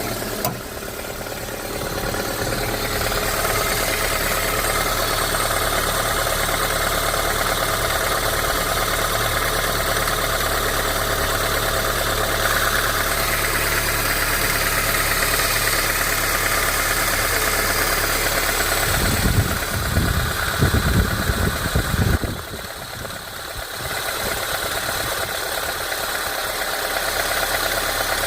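Vehicle engine idling steadily with a knock (стук) in it. About two-thirds of the way through there are a few seconds of heavy low thumping, then the level dips briefly.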